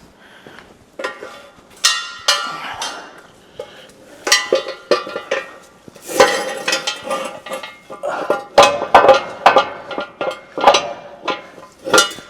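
Hard metal objects knocking and clinking together in an irregular string of sharp clanks, each one ringing briefly, busiest from about four seconds in.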